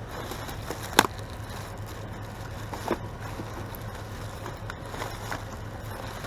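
A vehicle engine idling steadily with a low hum. A sharp knock about a second in and a smaller one near three seconds, items being handled.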